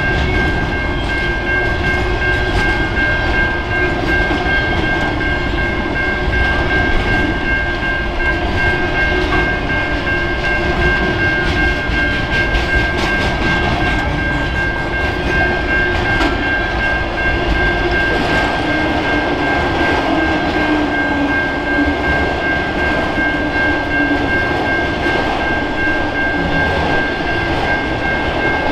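Norfolk Southern intermodal freight train's container cars rolling past at speed: a steady loud rumble with wheel clicks over the rail. A thin, steady high-pitched ring sounds throughout.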